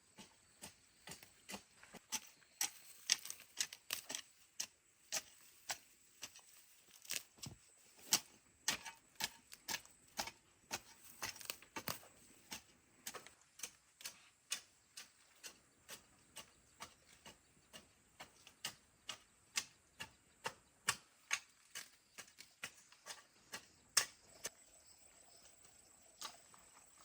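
A small hand hoe striking soil in a garden bed, a sharp knock about every half second at an uneven pace, thinning out near the end.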